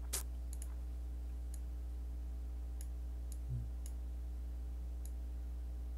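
Several faint, scattered clicks of a computer mouse, about seven in six seconds, over a steady low electrical hum, with one soft low thump about halfway through.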